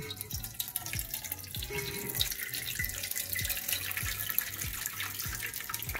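Thick chicken curry gravy and chicken pieces poured from one aluminium pot into another, a continuous wet pour with many small splats as the curry lands.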